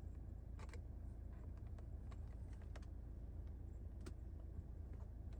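A few light, scattered clicks and taps, typical of hands handling the plastic parts of a car's glovebox, over a steady low hum.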